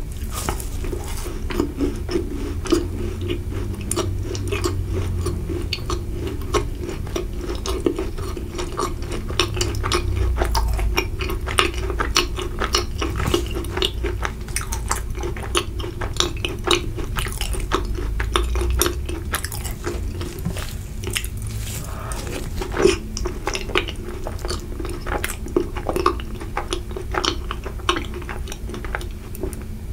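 Close-miked chewing of a macaron, with many small crisp crunches and soft mouth clicks throughout.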